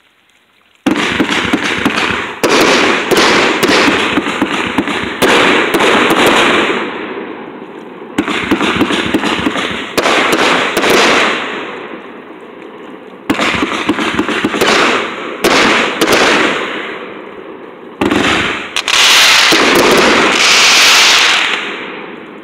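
Consumer firework cakes going off loudly. After about a second of quiet comes a rapid, uneven string of sharp shots and bursts in clusters, each dying away over a second or two, with a dense run of bursts near the end.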